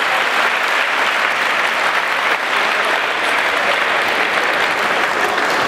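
Crowd applauding: dense, steady clapping that holds at the same level throughout.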